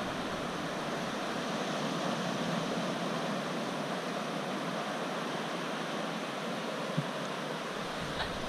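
Atlantic surf washing steadily onto a wide sandy beach, an even hiss of waves, with one small knock about seven seconds in.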